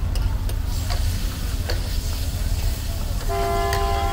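Metal spatula clicking and scraping against a large flat iron tawa as liver pieces are stir-fried, over a steady low rumble. Near the end a vehicle horn sounds once for about a second.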